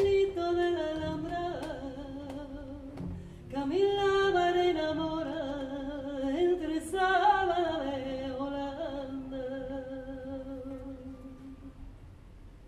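Flamenco cante in an alegría: a woman's voice sings a slow, ornamented closing phrase with wavering runs, then a new phrase about three and a half seconds in, and ends on a long held note that slowly fades.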